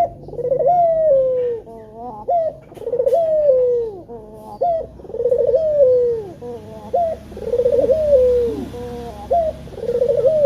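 Male puter (Barbary dove) cooing repeatedly: a short clipped note, then a long coo that rises and slides down, every two to three seconds.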